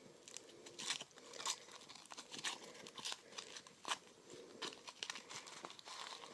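Foil wrapper of a Kinder Surprise chocolate egg being unwrapped, crinkling and crackling in quick irregular bursts.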